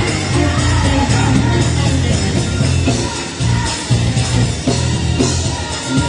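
Gospel choir singing with a live band: keyboard, heavy bass and drums keeping a driving beat.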